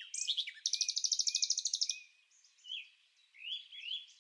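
A small bird chirping and twittering, with a fast, rapid trill of repeated notes lasting about a second, followed by short gliding chirps.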